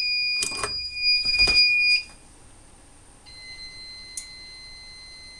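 A fire alarm system's electronic sounder gives a loud, steady high tone for about two seconds as the system is reset from its key switch, with a couple of clicks during it. About three seconds in, a second, quieter steady tone at a slightly lower pitch starts and holds.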